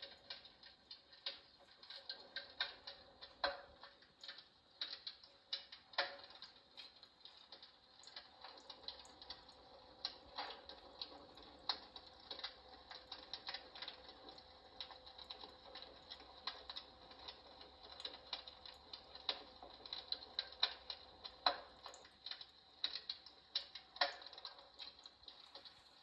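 Water-vapour electric fireplace running: faint, irregular crackling clicks, a few a second, over a faint steady hum.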